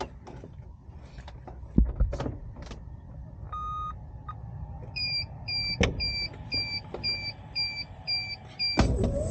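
Clicks and knocks of handling in the cockpit of an Archaeopteryx electric hang glider, then one beep and a regular run of about eight short electronic beeps, about two a second. Near the end the electric push-propeller motor starts with a sudden onset, and its whine begins to rise in pitch as it spins up.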